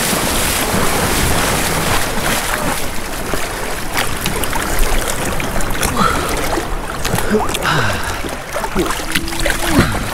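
Small waves breaking and water splashing around a plastic kayak as it is waded out through the shore break, with wind noise on the microphone.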